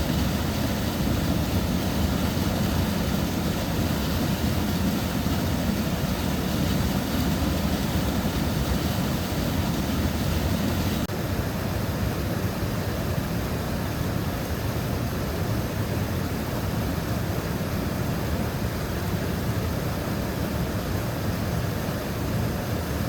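A waterfall's steady rushing roar of falling water, with a heavy low rumble and no breaks.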